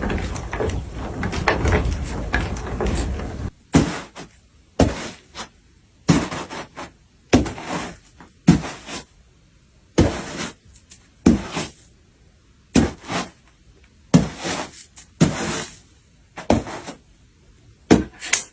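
Foley sound effects being performed: a few seconds of dense noise, then a long series of sharp knocks and thuds, often in pairs, about one or two a second.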